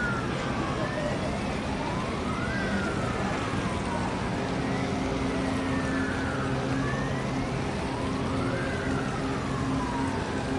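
A siren wailing, its pitch rising and falling about every three seconds, with two wails overlapping out of step. A steady low hum joins about four seconds in.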